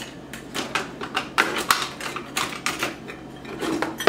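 Metal kitchen utensils clinking and clattering as a hand rummages through a cluttered utensil drawer, a run of irregular sharp clicks.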